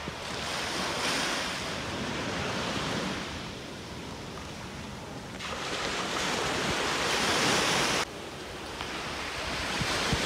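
Sea surf washing on the shore, swelling and fading, with wind on the microphone; the sound drops abruptly about eight seconds in.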